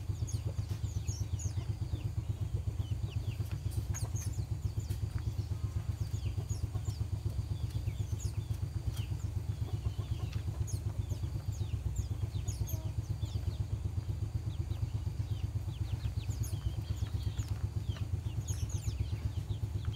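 A small engine running steadily with a fast, even low throb, while small birds chirp in short high notes throughout.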